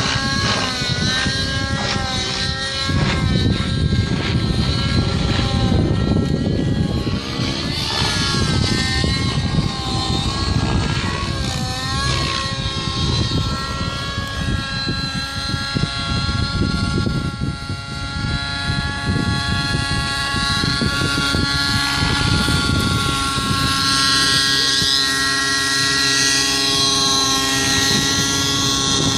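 Nitro (glow-engine) RC helicopter in aerobatic flight, its engine and rotor whine swinging up and down in pitch through the manoeuvres for the first half, then holding a steadier note.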